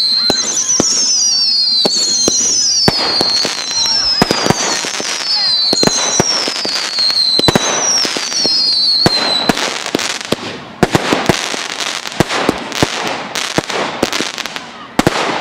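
Fireworks display: a run of high whistles, each falling in pitch and repeating about every three-quarters of a second, among sharp reports. After about ten seconds the whistles stop and dense crackling with rapid pops takes over.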